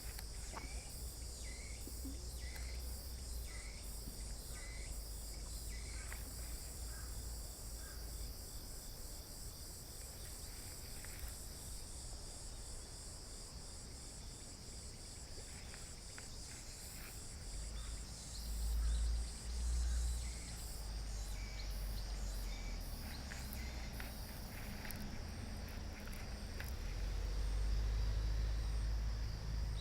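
Outdoor ambience of insects, a steady high-pitched shrill of crickets or cicadas, with a few short chirps early on. A low rumble of wind on the microphone swells twice, briefly past the middle and longer near the end.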